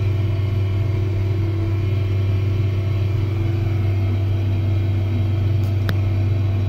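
Case IH 9250 four-wheel-drive tractor's diesel engine running steadily with a deep, even drone, heard from inside the cab while it pulls a disc harrow through stubble. A single sharp click comes about six seconds in.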